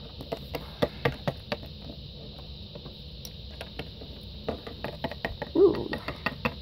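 Light, irregular taps and clicks of small plastic Littlest Pet Shop figurines being picked up, moved and set down on a hard tabletop, with a brief voice sound near the end.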